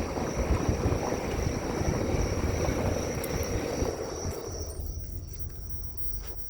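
Vehicle rumble and road noise that fades away about five seconds in, over a steady high chirring of crickets.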